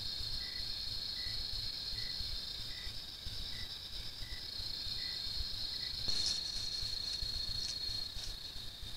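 Night insects calling: a steady high-pitched cricket trill, with a separate shorter, lower chirp repeating about every three-quarters of a second. About six seconds in there is a click, the repeating chirp stops, and the trill goes on.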